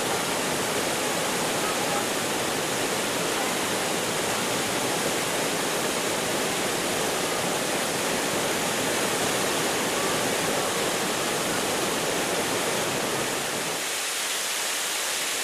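Waterfall pouring down over rocks: a steady rush of falling, splashing water.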